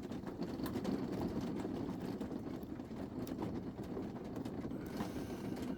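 Faint scattered clicks and ticks of a pick working the discs of an ABUS disc-detainer lock, over a steady low background rumble.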